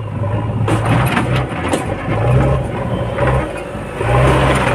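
JCB 3DX backhoe loader's diesel engine running, its level dipping and swelling, with a few sharp knocks about one to two seconds in.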